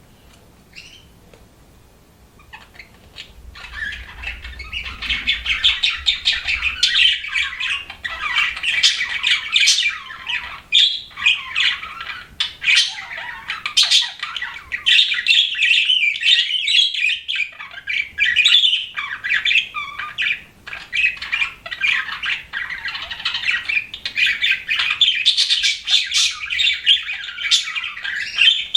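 Budgerigars chattering and warbling: a continuous rapid stream of high chirps and scratchy squawks that starts about three seconds in.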